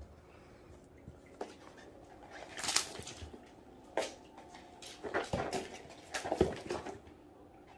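A kitten playing with a feather wand toy on a soft floor mat: its paws scuff, scrabble and thump as it stalks and pounces. The sounds come in a few short bursts with single taps between them.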